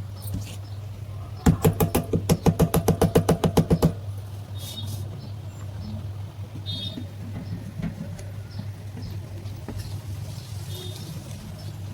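An electric table fan's motor hums steadily. A rapid run of loud clicks, about eight a second, starts about a second and a half in and stops near four seconds, and a few faint high chirps come later.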